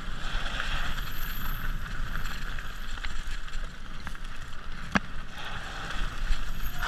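Mountain bike rolling downhill over a loose, leaf-covered dirt and gravel trail: a steady rush of tyre noise with small rattles and clicks, and one sharp knock about five seconds in.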